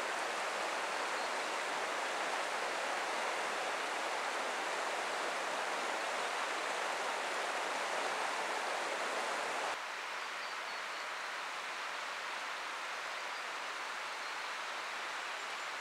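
A river rushing steadily, an even wash of flowing water. About ten seconds in it drops a little in level and thins in its lower part.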